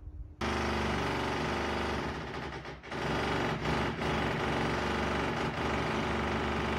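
Heavy electric demolition hammer chiselling through a brick wall, a rapid, continuous hammering that starts abruptly about half a second in and runs on with a few brief dips.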